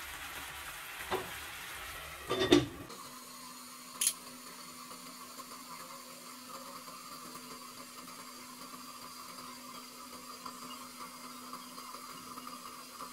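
A glass lid is set onto a pan on the stove with a loud clatter about two and a half seconds in, with lighter clicks about a second before and after. After that the tuna broth simmers steadily under the lid.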